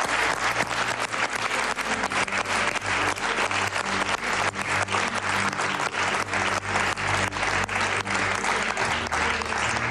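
A studio audience and contestants applauding: many hands clapping in a dense, steady patter, with a low music bed underneath.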